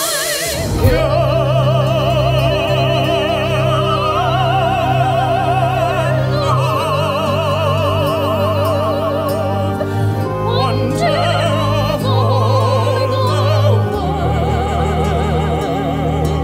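Musical-theatre song: a singer holding long notes with a strong, wide vibrato over accompaniment of sustained low notes, the pitch changing every second or two.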